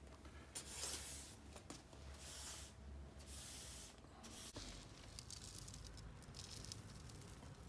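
A small hand brush sweeping spilled small-grain cat litter across a wooden floor in a few short swishes, then a plastic slotted scoop raking and sifting through a tray of the same litter.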